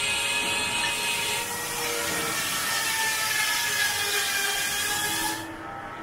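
Circular saw of a vintage belt-driven, steam-powered sawmill cutting timber: a loud, dense hiss with steady whining tones. The hiss cuts off suddenly near the end, leaving quieter, lower machinery running.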